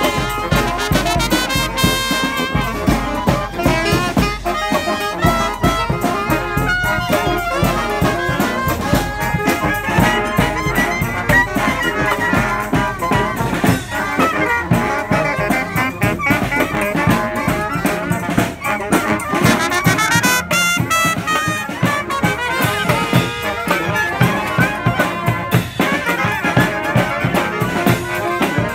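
Street brass band playing a tune: trumpets and trombones carrying the melody and harmony over drum hits.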